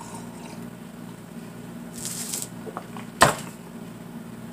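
Coffee mug set down on a hard surface with a single sharp knock about three seconds in, a second after a brief hiss, over a steady low hum.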